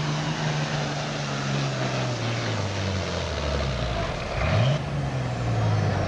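Heavy super stock diesel pulling tractor's engine running hard under load, its pitch falling in steps about halfway through as the engine slows near the end of the pull, then a short rev and steady running at lower revs.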